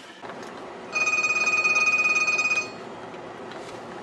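Mobile phone ringing: one steady electronic ring starting about a second in and lasting under two seconds.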